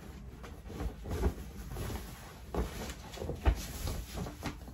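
A few soft, low thumps and light knocking handling noises.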